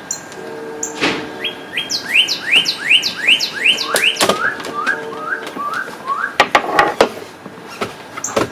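A songbird singing a run of about eight quick rising whistled notes, then dropping to a lower run of about six. Several sharp knocks sound now and then.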